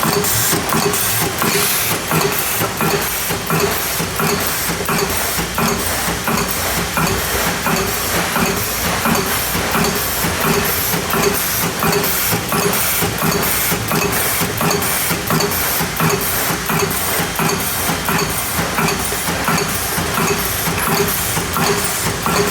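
Cartridge-case head turning machine running continuously, cutting extractor grooves in small arms ammunition cases: a steady, noisy machine sound with a rapid, regular clatter of several clicks a second.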